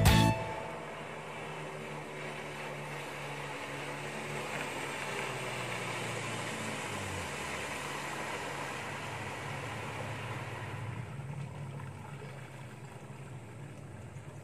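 A small boat's outboard motor running as the boat comes up the river, with a steady engine hum and the hiss of its wake. It grows louder as the boat nears, then eases off after about 11 seconds as the boat throttles down and slows.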